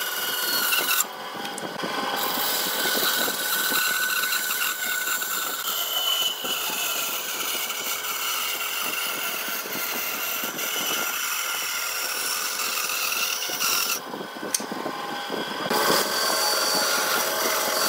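Band saw running and cutting through a thick wooden block along a curved line, a steady whine of the blade in the wood. The sound dips briefly twice, about a second in and near the end.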